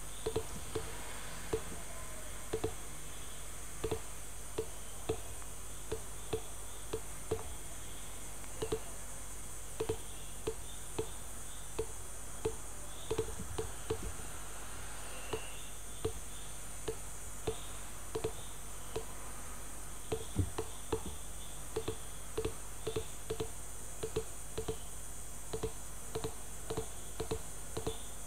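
Computer mouse button clicking at an irregular pace, roughly one or two sharp clicks a second, as anchor points are placed one by one with Adobe Illustrator's Pen tool, over a steady background hum and hiss.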